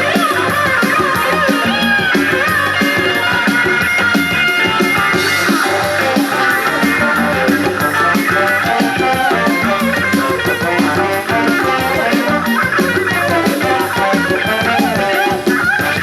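Music playing through a JVC RC-M90 boombox's speakers.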